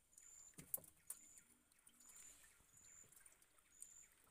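Near silence, with a few light knocks of handling in a small boat about a second in, and a faint high chirp repeating about once a second.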